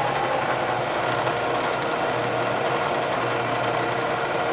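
Bridgeport Series 1 2 hp milling machine head running steadily at its top spindle speed of 2,000 RPM, a smooth even motor-and-spindle hum with a steady whine.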